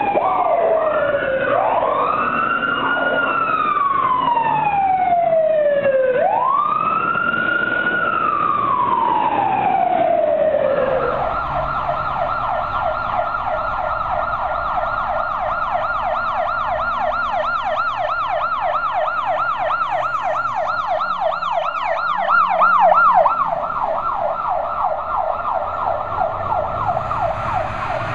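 Fire engine sirens on appliances responding: first a slow wail rising and falling in long sweeps, then, about a third of the way through, a fast yelp warbling rapidly up and down.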